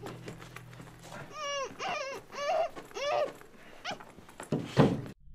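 High-pitched whimpering cries, four or five short ones that rise and fall in pitch, followed near the end by one loud sudden sound, after which the sound cuts off abruptly.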